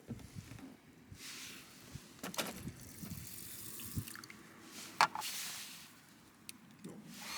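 Water pouring in three short spurts, with a few sharp clicks between them.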